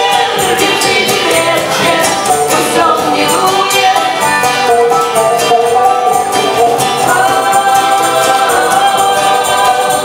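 Live acoustic band playing a song: acoustic guitar and banjo strummed with a tambourine, and men's and a woman's voices singing together.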